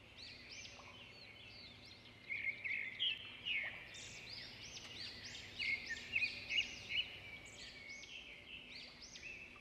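Birdsong ambience: many small birds chirping and whistling in short, arching notes, louder and busier from about two seconds in.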